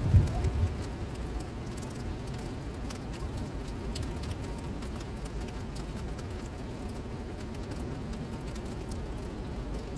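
Rain falling into standing water on a flooded paved surface, a steady patter of drops with fine ticks throughout. A few louder low thuds in the first half second.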